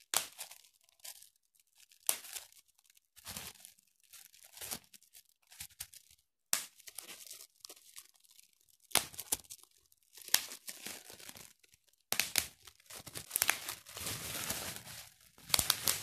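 Bubble wrap crinkling and popping as a gloved hand squeezes it: irregular sharp pops with crackling in between, busier over the last few seconds.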